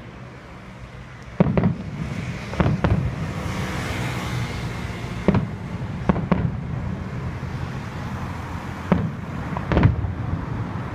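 Aerial fireworks shells bursting: about nine sharp bangs, starting about a second and a half in and several coming in quick pairs, each trailing a short echo. A crackling hiss fills the gaps a few seconds in.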